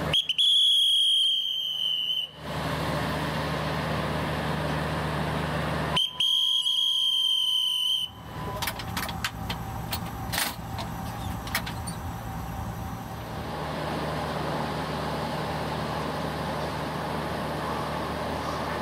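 Railway guard's whistle: two long shrill blasts of about two seconds each, a few seconds apart, the guard's signal that the train is ready to depart. A diesel locomotive idles with a steady low hum underneath, and a quick run of sharp clicks follows the second blast.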